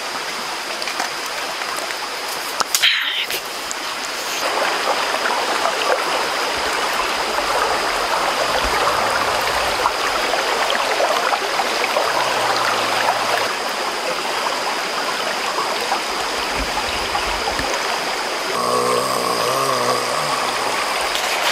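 Shallow rocky forest stream flowing steadily over stones. A brief sharp noise comes about three seconds in, and a short wavering pitched sound comes near the end.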